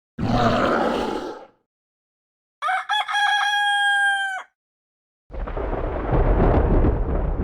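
A rooster crowing once, a stepped cock-a-doodle-doo lasting about two seconds, in the middle. It comes between a short noisy burst about the first second and a long low rumbling blast, like an explosion, that starts about five seconds in and is the loudest sound.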